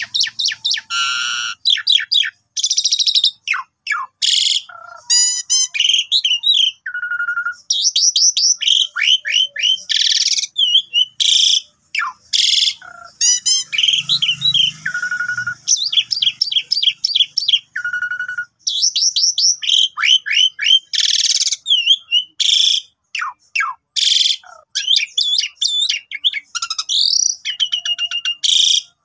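Asian pied starling (jalak suren) in full song: a long, unbroken run of quick whistles, rising and falling slurs and harsh chattering notes, with only brief pauses. This is the long, full song that is played to get other jalak suren singing.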